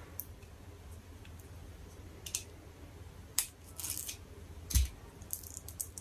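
Plastic battery packaging being opened by hand: scattered sharp clicks and crinkles, with a louder knock a little before the five-second mark.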